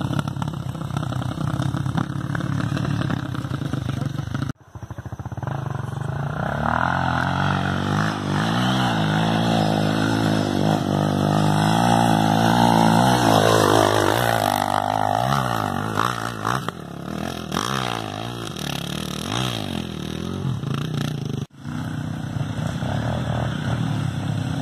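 Trail-bike engine revving hard on a hill climb: the pitch rises steadily for several seconds and holds high, then the revs surge and fall repeatedly as the throttle is worked. The sound breaks off abruptly twice.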